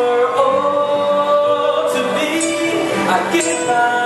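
Singing over band music through a PA system: long held vocal notes over drums with cymbal crashes.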